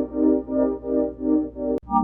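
Synthesizer chord loop from a house-music sample pack, swelling and fading about two and a half times a second. It cuts off abruptly with a click near the end.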